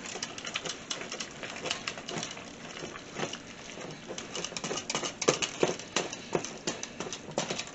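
Wooden spoon stirring a thick ricotta and spinach filling in a stainless steel bowl: irregular clicks and scrapes of the spoon against the metal, coming faster and a little louder about halfway through.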